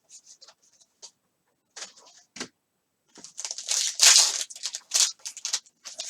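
Trading cards being handled and slid against one another in short scraping rustles, sparse at first, then denser and louder from about three seconds in.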